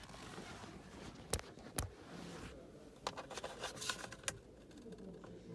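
Sharp clicks of hard plastic, two single snaps and then a quick run of clicks and rattles, as plastic steering-column parts are pried at by hand.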